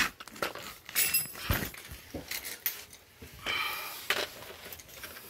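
Scattered metallic clinks of hand tools, one ringing briefly about a second in, among scuffs, a dull thud and rustling handling noise.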